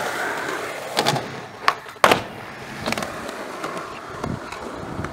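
Skateboard wheels rolling on concrete, broken by several sharp clacks and knocks of the board, the loudest about two seconds in.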